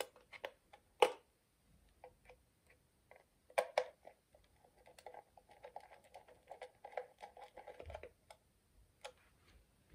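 Plastic clicks and knocks as the wiring-box cover of a tado° smart thermostat backplate is pressed shut. This is followed by a run of small rapid ticks as a small screwdriver turns the cover's screw into the plastic.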